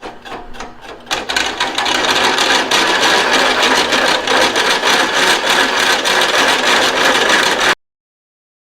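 A power tool cutting through steel angle iron: a harsh, steady cutting noise that comes in about a second in and stops abruptly near the end.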